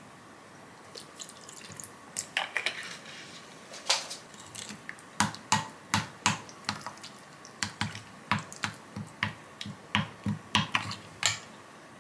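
A metal spoon stirring a thick, wet seasoning paste in a glass bowl, clinking and tapping against the glass in irregular clicks about twice a second, after a brief pour of water from a plastic bottle about two seconds in.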